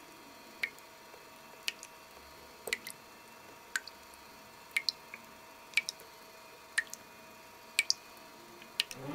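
Water dripping slowly, one clear plink about every second, now and then two drops in quick succession, over a faint steady hum.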